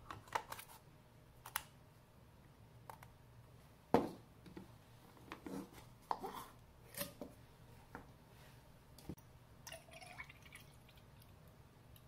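Light clicks, knocks and brief rubbing of plastic, metal and glass coffee gear being handled: an AeroPress filter cap taken off and a French press plunger worked. One sharper knock comes about four seconds in.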